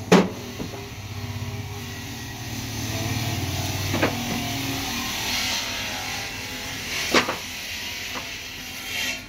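Marble tiles clacking sharply as they are set down on a stack, three times about three seconds apart, over the low steady hum of a vehicle engine.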